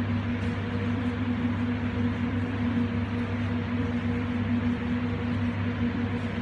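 Steady hum and rushing noise of commercial kitchen machinery, a constant low drone with a higher hum tone above it that never changes.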